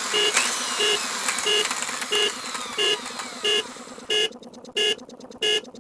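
An electronic beep repeating evenly, about three beeps every two seconds, over a hissing background with falling whistle-like sweeps. The background cuts out about four seconds in, leaving the beeps on their own.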